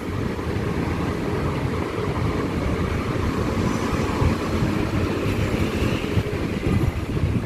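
Steady street traffic noise: passing cars and road rumble heard while walking along a city street.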